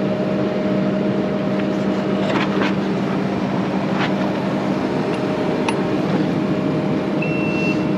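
Heavy equipment engine running steadily, with a few sharp metal knocks, and a reversing alarm starting to beep near the end.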